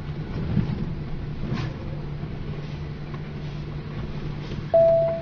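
Runaway truck heard from inside the cab: a steady low engine hum and road rumble as it rolls on with failed brakes. Near the end a loud, steady single-pitched beep sounds for about half a second.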